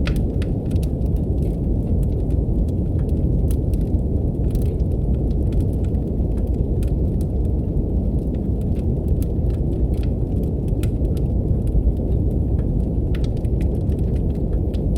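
Steady brown noise, a deep even rush, with a wood fire crackling over it in sharp, irregular pops and snaps.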